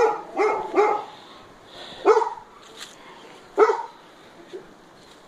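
A dog barking: a quick run of three barks in the first second, then single barks about two and three and a half seconds in.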